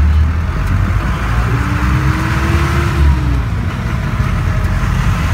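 Jeepney's engine and road noise heard from inside the cabin while driving: a loud, steady low rumble.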